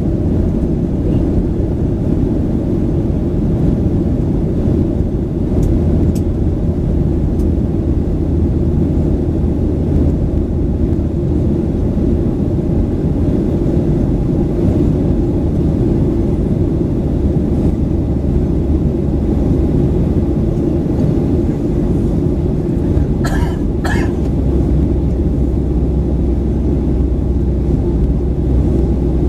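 Steady jet-engine and airflow noise heard inside the passenger cabin of a Boeing 737-900, a low, even drone. A brief sharp double noise comes about 23 seconds in.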